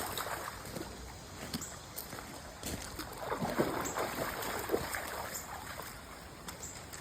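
A dog wading and swimming in a creek, its movements sloshing and splashing the water unevenly, busiest in the middle.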